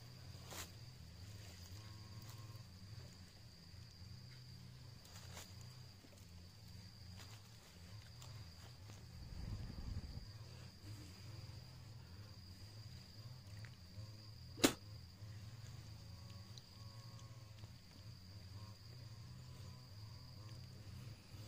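Faint steady high-pitched insect drone over a low rumble. A brief low thump comes about ten seconds in, and one sharp click about fifteen seconds in.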